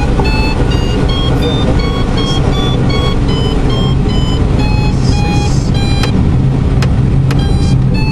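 Airflow rushing past the cockpit of a light aircraft gliding with its engine off, propeller stopped. Over it, an electronic variometer beeps in short tones, about two to three a second, its pitch stepping up and down with the climb and sink. A few sharp clicks come near the end.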